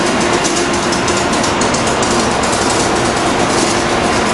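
SEPTA AEM-7 electric locomotive rolling past at close range as it pulls into the station. A steady hum carries over the rumble of its wheels on the rail.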